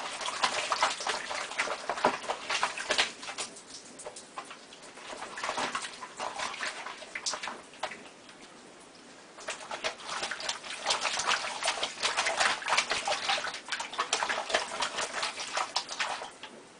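A cat pawing and splashing at water and dishes in a sink: quick, rapid splashing strokes in two long bouts, with a quieter spell between them.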